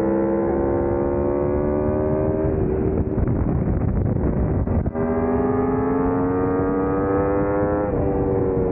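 Aprilia Tuono's V4 engine pulling hard, its pitch rising steadily, then a rough stretch off the throttle where wind noise takes over for a couple of seconds. It pulls again with rising pitch and drops sharply, as at an upshift, near the end, with constant wind rush throughout.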